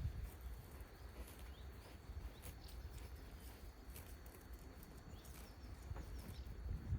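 Sheep moving about, with scattered light clicks and knocks over a steady low rumble and a louder knock near the end; no bleating.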